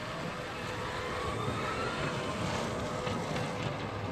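Electric truck driving away: a faint motor whine rising in pitch as the converted Isuzu chassis-cab accelerates, over a low rumble.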